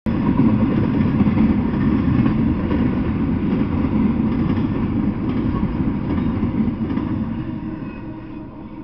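Freight train of double-stack intermodal well cars rolling past on the rails with a steady low rumble that fades over the last couple of seconds as the end of the train goes by.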